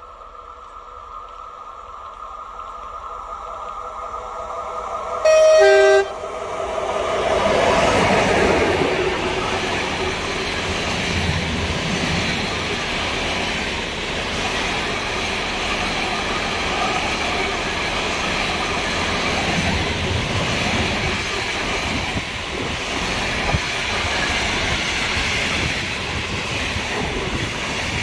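A freight train approaches with a hum that grows louder. The locomotive gives one short horn blast of two notes, high then low, about five seconds in, then passes. The loaded container flat wagons follow with a steady rolling rumble and irregular clicks of wheels over the rail joints.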